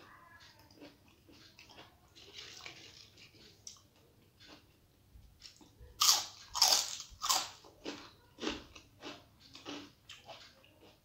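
Eating a rice meal by hand: soft squishing and ticking of fingers mixing rice on the plate, then loud crunchy bites and chewing of a mouthful starting about six seconds in, a run of crunches over some two seconds that tapers into softer chewing.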